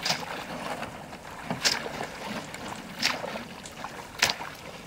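Footsteps wading through shallow water in waders: four sloshing steps, about one every second and a half.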